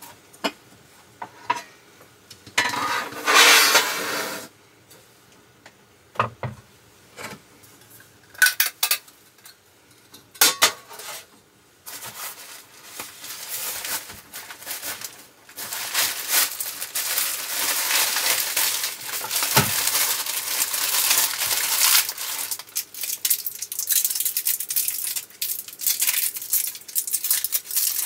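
Cooking sounds: metal utensils and pots clink and knock a few times, with a short rustling burst early on. About halfway through a steady crackling sizzle of food frying in a pan sets in and grows louder.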